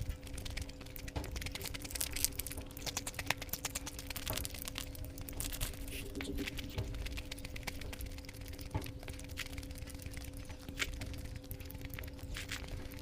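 Close-miked eating sounds: wet chewing and mouth smacks from a mouthful of egg curry and rice, a steady run of small irregular clicks over a constant low electrical hum.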